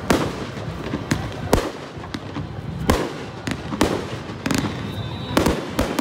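Aerial fireworks shells bursting overhead: a string of sharp bangs at irregular intervals, about eight in six seconds, with rumbling between them.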